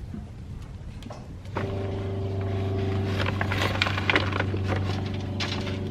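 An engine or motor starts up suddenly about a second and a half in and runs at a steady pitch, with rustling and clicks handled close by.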